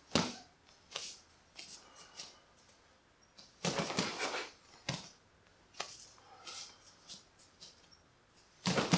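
Karate uniform snapping and swishing with fast punches and a kick, with bare feet stepping on the mat: a string of short sharp rustles, the longest lasting about a second a little past three and a half seconds in.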